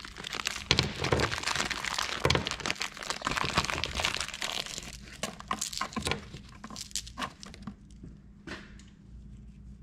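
Crinkling packaging and a run of small clicks and knocks as the nuts for the main-bearing-cap studs are taken out and handled, busy at first and thinning out over the last few seconds.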